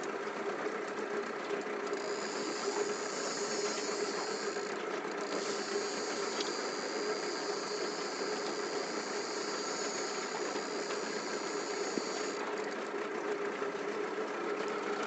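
Mercury 9.8 hp outboard motor running steadily at slow trolling speed. A high hiss joins about two seconds in and drops away near the end.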